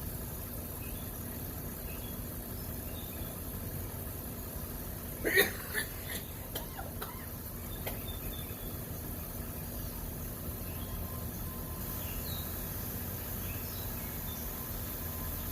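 Faint, scattered chirps of small songbirds over a steady low rumble of background noise. About five seconds in comes a sudden loud knock, followed by a few lighter clicks.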